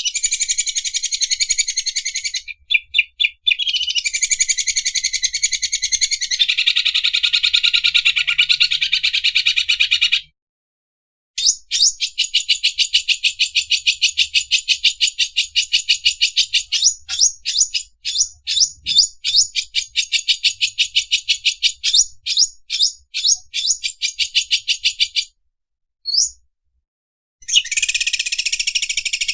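Green leafbird (cucak ijo) singing its 'mesin obras' song: long runs of very rapid, high-pitched chattering notes like an overlock sewing machine. The runs break off with short pauses, once about a third of the way through and twice near the end.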